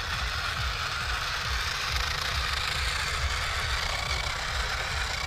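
Steady whirring of small electric motors with a faint high whine, over an uneven low rumble.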